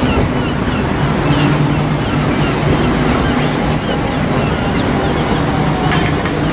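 Southern Class 377 Electrostar electric multiple unit moving past along the platform: a steady low electric traction hum over the rumble of its wheels on the track.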